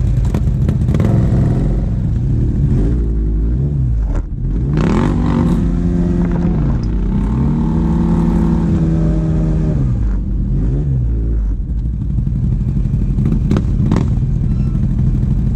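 ATV engines: one idles steadily throughout while an engine is revved up and let back down about six times in quick succession through the middle stretch, with a few clunks mixed in.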